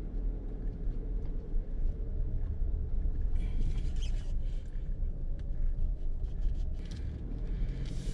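Low road rumble inside a vehicle's cabin while driving on a gravel road, with scattered light ticks and rattles. Near the end a brighter hiss swells as an oncoming pickup passes close by.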